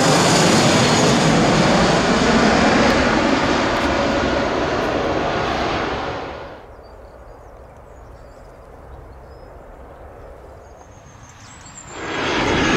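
Twin-engine jet airliner passing low overhead on approach: loud engine noise with whines falling in pitch. About halfway through it drops away to a much quieter steady background hum, and near the end another jet's noise rises loudly overhead.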